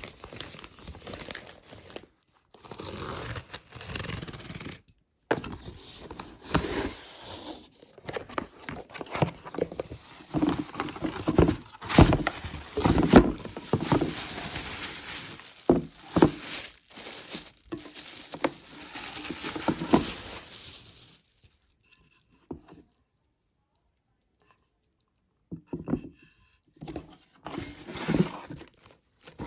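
Packaging being torn open and crumpled while a frying pan is unboxed, with crinkling, scraping and crunching handling noises. The handling stops for a few seconds about 21 seconds in, then starts again.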